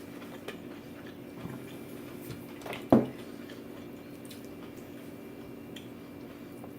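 Someone eating close to the microphone: soft chewing and small mouth clicks over a steady low hum, with one louder sharp knock about three seconds in.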